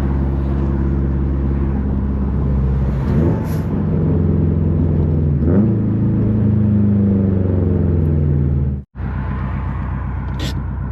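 2005 Subaru STI's turbocharged 2.5-litre flat-four running through a full titanium Tomei exhaust with a catless downpipe while driving, loud and steady. The engine note sweeps in pitch around three seconds in and again around five and a half seconds, then holds. The sound cuts out completely for an instant near nine seconds.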